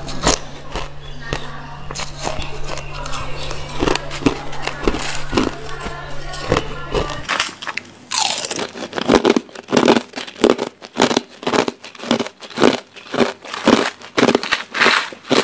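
Crushed ice crunched between the teeth, one sharp crunch after another. Over the first seven seconds there is a steady low hum underneath. After it stops, the bites come clearer and louder, about two a second.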